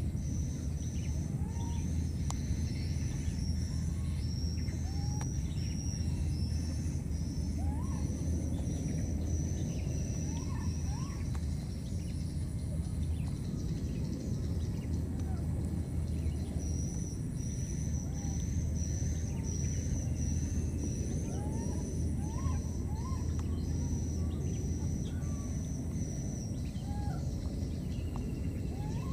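Outdoor natural ambience: a steady low rumble under a fast series of high chirps that stops for several seconds in the middle and then resumes, with scattered short rising calls throughout.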